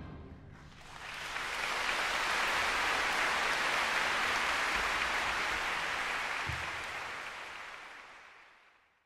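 Audience applauding, swelling in about a second in and fading away near the end.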